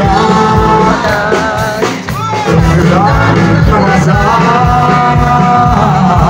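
Loud music with a singing voice over a steady beat, played over concert loudspeakers. It drops out briefly about two seconds in.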